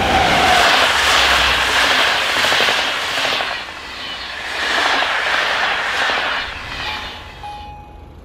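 An electric locomotive and its passenger coaches pass at speed: a loud rush of wheels on rails that swells twice and then fades. Near the end a level-crossing warning signal starts sounding steady electronic tones.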